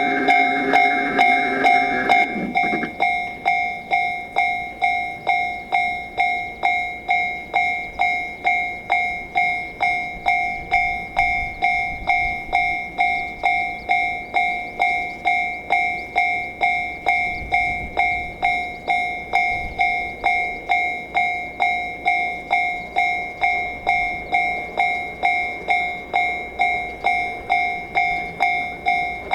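Japanese level-crossing warning bell ringing its steady 'kan-kan', about two strikes a second. Another pitched tone sounds at the start and breaks off about two and a half seconds in.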